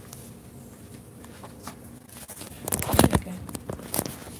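Low room noise, then a few short knocks and rustles of something being handled, loudest about three seconds in, with a couple of sharp clicks near the end.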